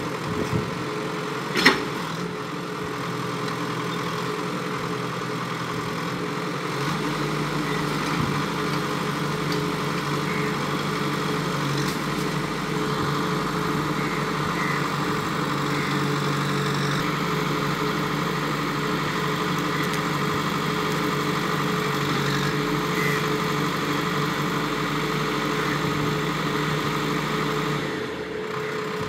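JCB backhoe loader's diesel engine running steadily. It runs fuller and louder from about seven seconds in until near the end, and there is one sharp knock about two seconds in.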